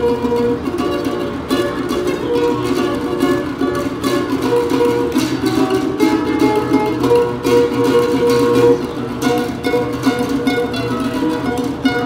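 Solo classical guitar playing a continuous plucked melody over chords.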